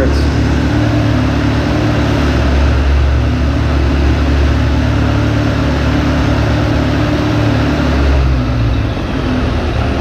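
Suzuki GSF600 Bandit's carbureted inline-four idling steadily, settling down after a spritz of starter fluid, with a slight dip in pitch and level near the end. The idle has been erratic, which the owner takes for a vacuum leak at an intake boot.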